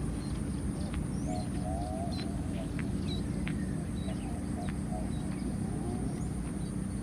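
Outdoor ambience with small birds chirping and twittering in short, scattered calls, over a steady low rumble and a constant high-pitched hiss.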